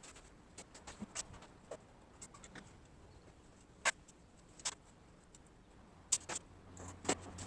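Scattered light clicks and taps, irregular and faint, from tools and parts being handled at the workbench. A low hum fades in near the end.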